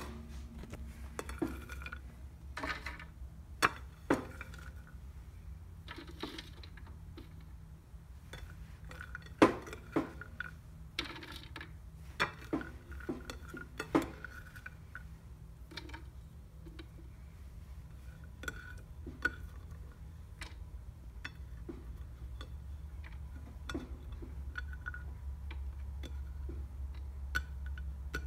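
Irregular light clicks and taps of cut butternut squash pieces and a paper plate being handled onto a plastic food dehydrator tray, thicker in the first half and sparser later, over a low steady hum.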